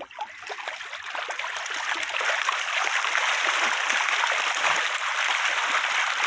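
A mass of trout thrashing in a crowded net at the water's surface, a continuous churning splash that builds over the first couple of seconds and then holds steady.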